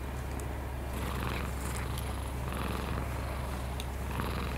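Domestic cat purring steadily, a low rumble with a soft breathy rise and fall about every second and a half.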